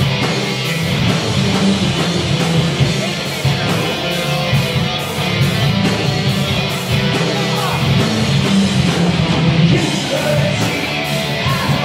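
A live rock band playing loud and continuously: distorted electric guitars, bass and drums, with cymbals struck in a steady beat. A voice sings near the end.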